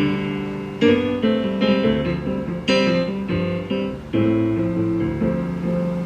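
Keyboard playing a run of chords, struck about once or twice a second, each one fading before the next.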